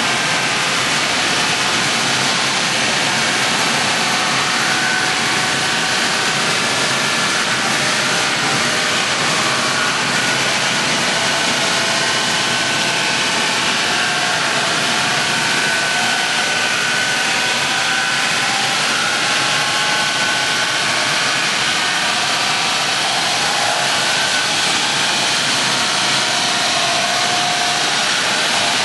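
Wood sawdust making machine, a crusher that grinds whole logs into fine powder, running steadily under load with a loud, even noise as it discharges sawdust.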